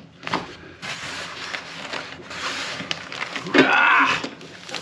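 Cardboard packing being pulled and slid off heavy flat steel panels: scraping and rustling with a few knocks, the loudest scrape and knock near the end.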